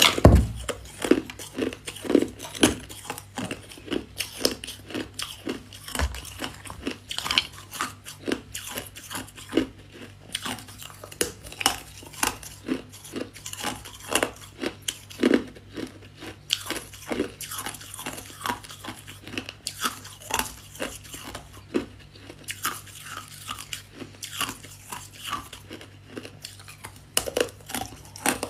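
Close-up bites and chewing of crunchy freezer frost: a steady run of sharp crunches, a few each second.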